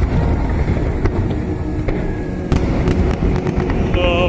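Aerial fireworks shells bursting overhead: a run of sharp bangs over a continuous low rumble. Near the end a singing voice with strong vibrato comes in over the bangs.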